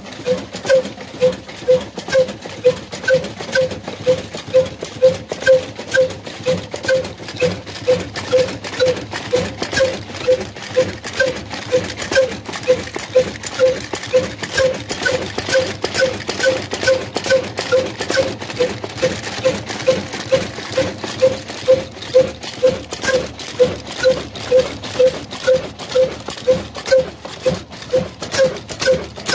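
Old single-cylinder horizontal Ruston diesel engine of the kind run on black oil, running steadily at slow speed. It gives an even, knocking beat of about two strokes a second over a constant mechanical clatter.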